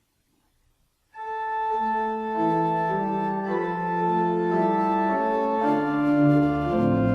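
Organ music beginning about a second in: sustained chords of held notes moving from chord to chord, with deeper bass notes coming in near the end.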